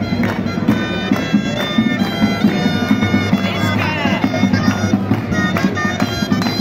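Shrill double-reed folk pipes playing a lively melody in unison over a steady low drone, with a drum keeping a regular beat: street music for the giants' dance.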